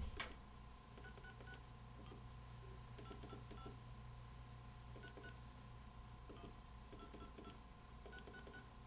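Motorola Razr V3 keypad tones: faint short beeps in quick runs of two to four, one per key press, as letters are typed by multi-tap entry. A louder click comes just after the start.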